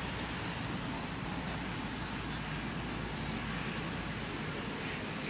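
Steady outdoor background noise: an even hiss over a low rumble, with no distinct calls or other events.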